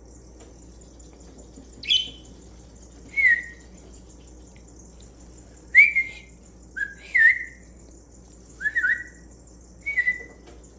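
Small pet bird giving short whistled chirps, about seven in all, a second or two apart, some in quick pairs.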